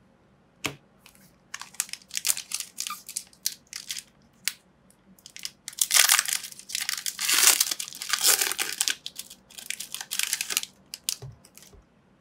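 Foil wrapper of a Pokémon card booster pack crinkling in the hands and being torn open: scattered crackles first, then a longer, louder run of tearing and crinkling in the middle.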